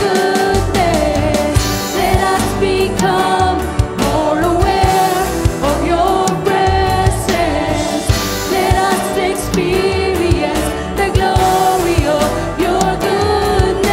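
Christian worship song: voices singing a melody over a band with bass and drum hits.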